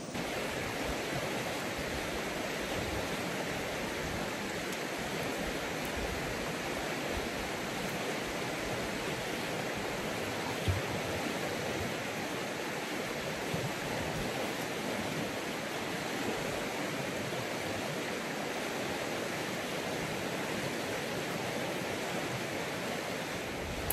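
Steady, even rushing of running water, with a couple of faint knocks partway through.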